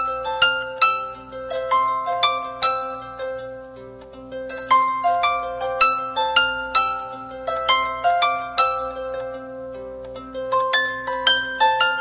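Background music: a plucked-string melody of quick, ringing notes in rising runs over a held lower note.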